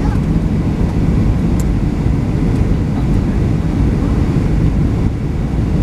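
Cabin noise inside a Boeing 737-700 on approach: a steady low rumble from its CFM56 jet engines and the rushing airflow over the airframe.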